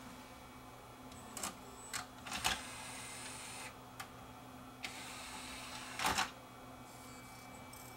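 HD DVD drive mechanism powering up: a string of faint clicks and short motor whirs as the loading tray moves and the optical pickup sled resets, with the loudest clunk about six seconds in.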